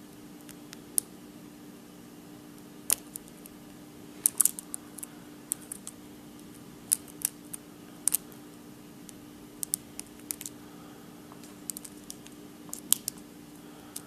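Metal lock pick and tension tool working the pins of a Schlage SC4 six-pin core in a Stanley padlock during single-pin picking: irregular sharp little clicks and ticks, some in quick clusters, as the pins are lifted and set.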